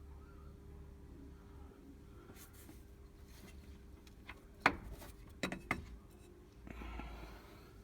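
Tools being handled on metal while the engine's pulley bolt is worked on: a few sharp metallic knocks about two-thirds of the way through and a short scrape near the end, over a low steady hum.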